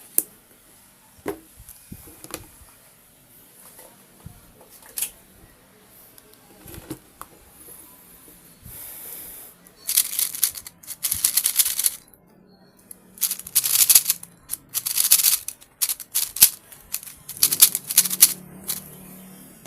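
Plastic speed cube being turned by hand. A few separate clicks come first, then three spells of rapid clacking turns from about ten seconds in.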